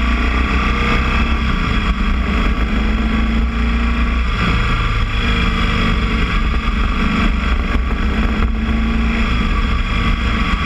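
Boxer-twin motorcycle engine running while under way, its note dipping and picking back up a few times.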